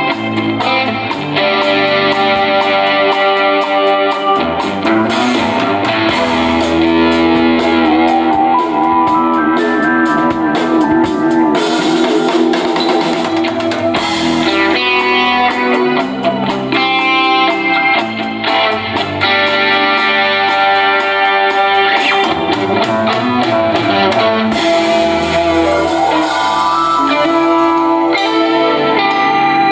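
A band playing: electric guitar over a drum kit, steady and loud.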